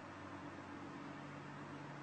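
Faint steady hiss with a low, steady hum of several tones underneath.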